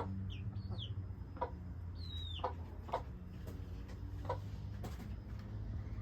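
A hen clucking in short single clucks, about five spread across a few seconds, while a chick peeps in high, thin notes, one of them sliding downward, in the first half.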